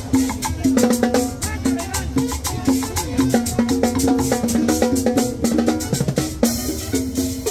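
Latin dance music with a busy percussion beat and a repeating melody line.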